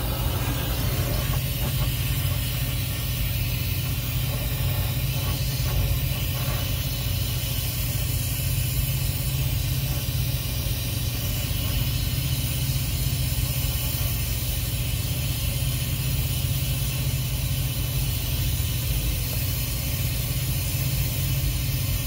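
Brazing torch flame burning steadily with a low rumble and hiss as it heats a copper refrigerant line joint while brazing rod is fed in.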